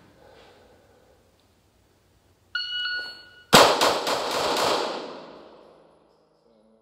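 A shot timer beeps for about a second. Then a red-dot pistol fires five rapid shots about a quarter second apart, the first the loudest, with a long echo off concrete walls.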